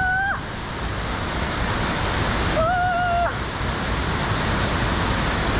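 Mountain stream water rushing steadily, with a short pitched vocal sound about halfway through.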